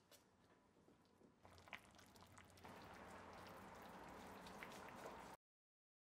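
Pot of borscht bubbling on the stove: a faint hiss of simmering liquid with small pops, growing from about a second and a half in and holding steady until it cuts off near the end.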